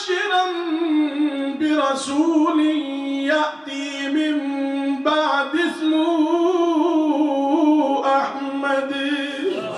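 A man chanting Quranic recitation into a microphone in long, melodic held notes. The chant comes in several phrases with short breaths between them.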